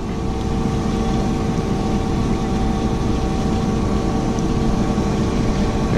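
John Deere T670i combine harvester's engine idling steadily, a constant low drone with a steady whine above it.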